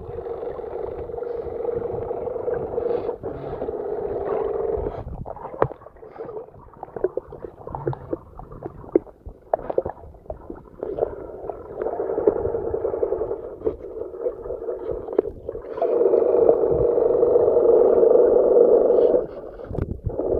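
Muffled steady hum heard underwater, strongest in the first few seconds and again near the end. In the middle it gives way to a run of irregular clicks and knocks.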